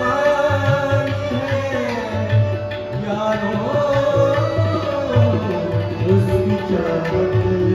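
Ghazal music: tabla playing a steady rhythm under sustained harmonium tones, with a man singing a long, winding melodic line.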